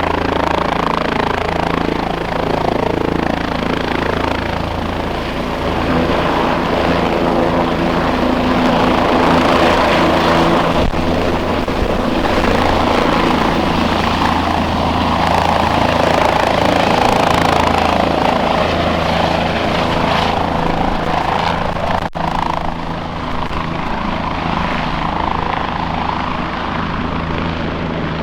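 Helicopter running steadily, its rotor and engine making a continuous drone.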